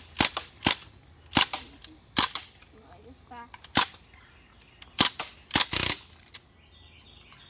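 CO2-powered BB guns firing single sharp pops at irregular intervals, about nine shots, with a couple of quick pairs about two thirds of the way in.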